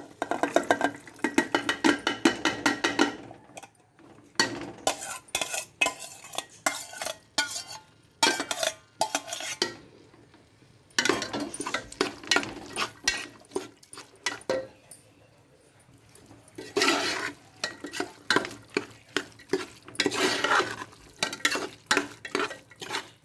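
Cooked vegetables are scraped out of a steel bowl into a steel pressure cooker, then stirred with a metal spoon. The spoon scrapes and clinks against the pot in runs of quick strokes, stopping briefly twice.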